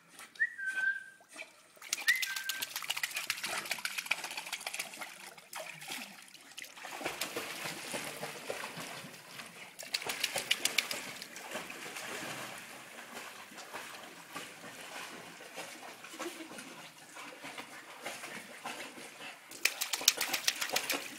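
A pit bull dog paddling through a swimming pool, its legs churning the water in rapid, steady splashing that swells into heavier splashing a few times. Two brief high squeaks come in the first two seconds.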